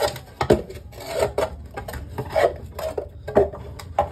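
Rubbing and scraping on a part of a disassembled LG dryer as lint and dirt are cleaned off it, in short irregular strokes about two a second.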